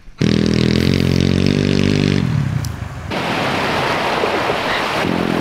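Pit bike engine running hard at a steady, high speed as it tows a rider on a tube across a pond. About three seconds in, a loud, even rushing noise takes over, with the engine faint beneath it.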